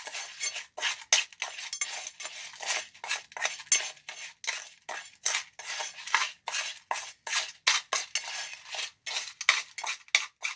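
A spoon stirring and scraping a small batch of stiff, fairly dry concrete mix of sand, gravel, fiberglass, Portland cement and a little water, in quick repeated gritty strokes.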